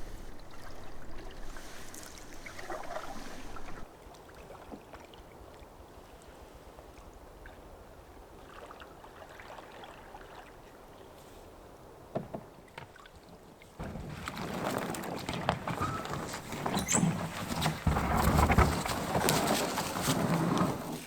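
Canoe under paddle: paddle strokes and water sloshing against the hull. The last several seconds are louder, with a run of sharp knocks and clicks.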